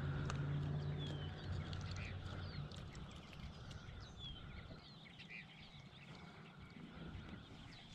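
Birds calling, faint, with many short chirps, over a low steady hum that fades out in the first few seconds.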